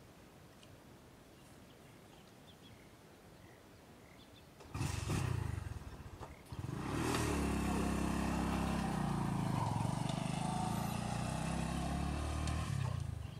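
A small engine, quiet at first, then starting up abruptly about a third of the way in with a brief burst, a short dip, and then running steadily with a low, slightly wavering tone until it cuts off near the end.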